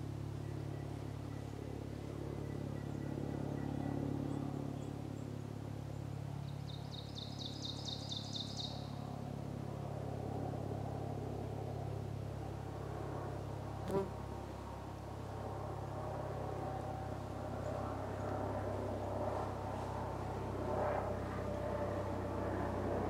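A steady low hum runs under quiet woodland air. About seven seconds in, a songbird gives a quick series of high notes lasting about two seconds, and there is a single sharp click near the middle.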